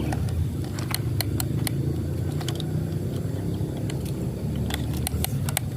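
Excavator's diesel engine running steadily while loading sand, with scattered sharp clicks over the low drone.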